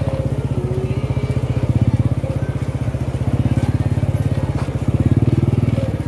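Small motorcycle engine running at low speed, a steady, rapid putter of even firing pulses.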